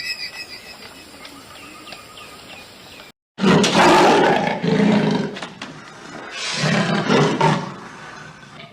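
Faint bird chirps, then two loud, rough calls from a large wild animal: the first begins about three and a half seconds in, the second a few seconds later.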